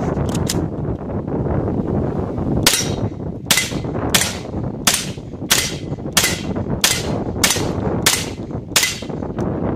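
GSG MP40 9mm blowback semi-automatic pistol firing a steady string of ten shots, about one and a half a second, starting about three seconds in. Wind rumbles on the microphone underneath.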